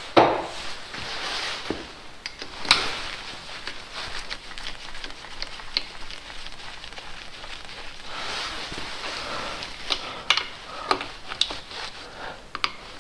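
Gloved hands handling metal engine parts and a ratchet wrench at the front of a Mercedes M113 V8 block: rustling with irregular metallic clicks and taps, a sharp knock at the start and another a few seconds in.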